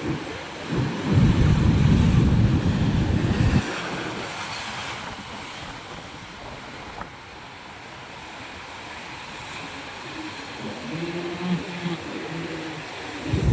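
Ocean waves washing onto a rocky beach, with wind buffeting the microphone in a loud low rumble for the first few seconds, then a steadier, quieter wash of surf. A faint low hum comes in briefly near the end.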